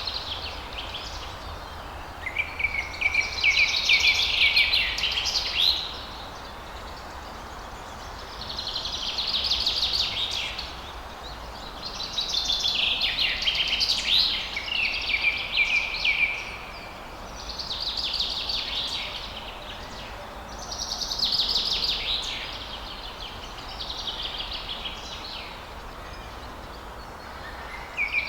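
Songbirds singing in bouts of rapid chirps, roughly every few seconds, over the steady rush of a waterfall.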